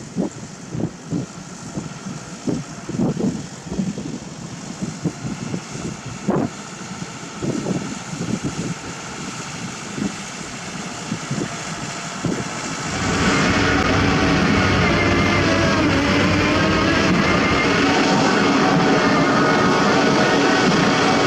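Heavy construction machinery working. For the first part there are irregular knocks and clanks over a quieter engine. About two-thirds of the way in, a diesel engine comes up sharply to full power and holds a loud, steady drone.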